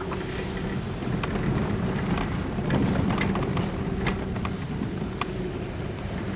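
Cabin noise of a 2007 Honda Pilot with its V6 running as it crawls along a rough dirt trail: a steady low engine and drivetrain hum. Tyres crunch over the ground, with a scatter of sharp clicks and knocks as it rolls over stones and ruts.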